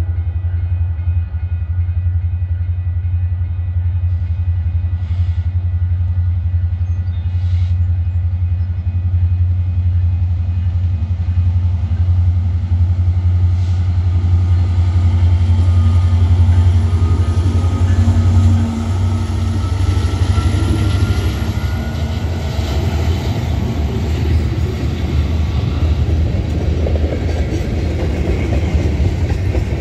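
Union Pacific freight train passing: the diesel locomotive's engine drones steadily and loudly as it approaches and goes by, dropping away about two-thirds of the way through. After it, the freight cars' wheels clatter and rumble over the rails as the train rolls past.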